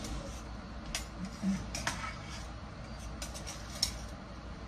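A metal spoon tapping and clinking against a stainless steel soup pot while the soup is stirred: a few light, scattered clinks over a low steady hum.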